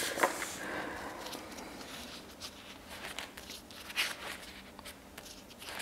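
Soft rustling of paper and sticker sheets being handled, followed by scattered small taps and clicks.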